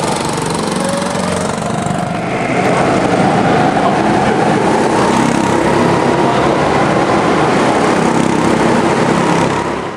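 Several go-kart engines running as the karts lap the track and pass close by, a steady loud drone with engine pitches that rise and fall. The sound changes about two seconds in.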